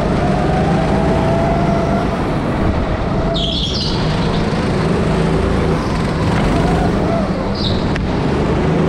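Rental go-karts running steadily on an indoor track, heard from on board one kart. Two short high squeals, about three and a half seconds in and again about seven and a half seconds in, fit the tyres sliding on the polished floor through the corners.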